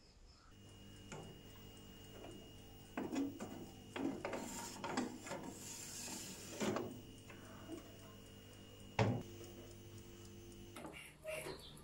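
Metal baking tray being handled and slid into an electric toaster oven: several knocks and clatters and a scrape, the loudest knock about nine seconds in, over a steady low hum.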